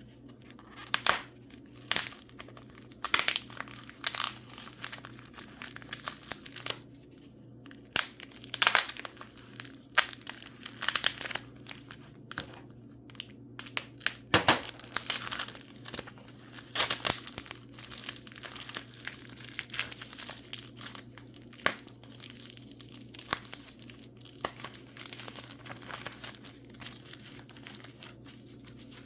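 Packing wrap crinkling, crumpling and tearing in irregular bursts as mineral specimens are unwrapped by hand. The bursts are busiest in the first half and sparser later.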